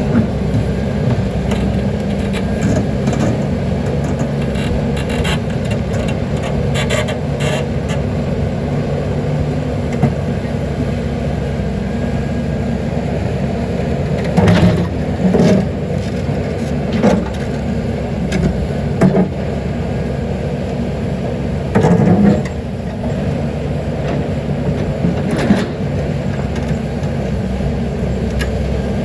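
Caterpillar 320D excavator's diesel engine running steadily under work, with a few short loud knocks and scrapes from about halfway through as the bucket works against stones.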